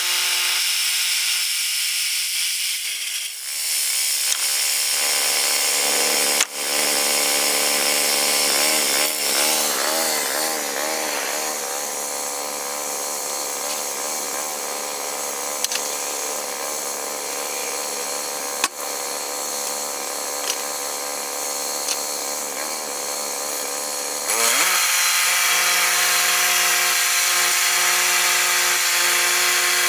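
Woodland Mills portable bandsaw mill's gas engine running fast, throttled down to idle about three seconds in, then revved back up near the end. Two sharp knocks land while it idles.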